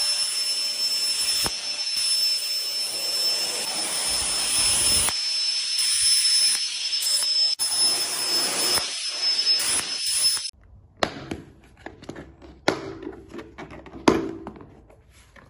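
Cordless handheld turbo jet fan blowing at speed: a steady rush of air with a fixed high-pitched whine from its fast-spinning motor. It cuts off suddenly about ten seconds in, leaving a few faint clicks and knocks of handling.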